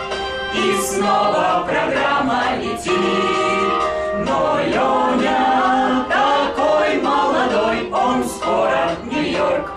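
A mixed group of men and women singing a birthday song together in chorus.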